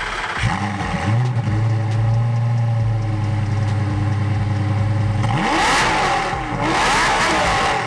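Lamborghini Gallardo V10 engine running at a steady fast idle, then revved several times in the last couple of seconds, its pitch climbing and falling with each blip.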